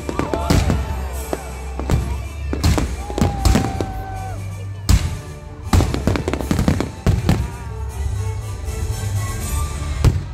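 Fireworks display: many shells and mines bursting in quick succession, with a few whistles gliding up and down in pitch, over music.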